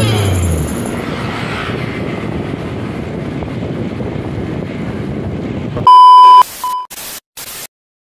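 Music fades out in the first second, leaving a steady rush of wind and road noise from riding along a street. About six seconds in, a loud electronic beep sounds for half a second, then a shorter beep and two brief bursts of hiss, and the sound cuts off.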